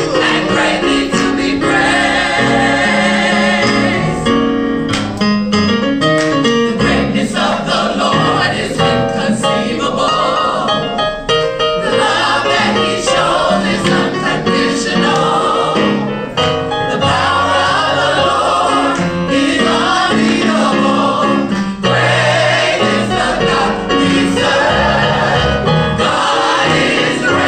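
Gospel choir singing, several voices together over instrumental accompaniment.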